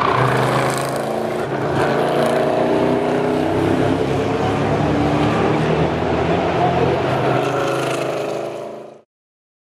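NASCAR Euro Series stock cars racing by, their V8 engines running hard with the engine note shifting in pitch as they pass and accelerate away. The sound fades out about nine seconds in.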